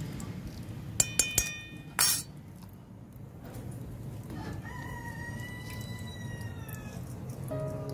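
A small metal spoon clinks three times against a steel bowl, followed by a short scrape as it is set down. Then a rooster crows once, a long call of about two and a half seconds that sags slightly in pitch at the end.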